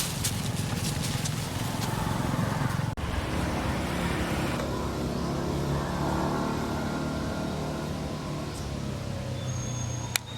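Motor vehicle engine running, a steady low hum with road traffic around it, briefly cut off about three seconds in. A sharp click near the end.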